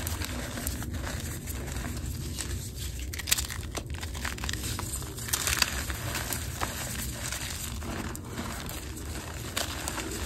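Crunchy reformed gym chalk being crushed and rubbed between the fingers, crackling and crunching as the clumps break into powder. There are a few louder crunches about three and five and a half seconds in.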